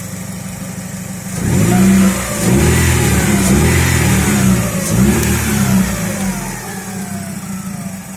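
Chevrolet Lacetti's petrol engine idling, then revved up and down several times before settling back to idle near the end. The owner says it runs unevenly with vibration and suspects an air leak.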